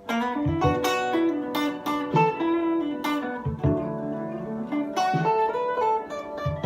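Ibanez AGR-73T hollow-body electric guitar played with its natural tone: picked single notes and chords that ring on into one another, in a loose improvised line.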